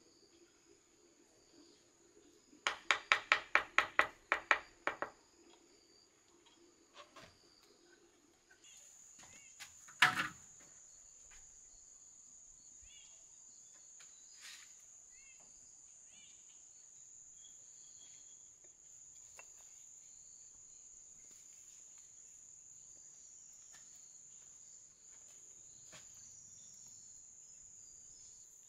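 Insects buzzing steadily at a high pitch, louder from about nine seconds in. About three seconds in, a metal masonry trowel strikes a brick in a quick run of about a dozen ringing taps, and a single loud knock follows about ten seconds in.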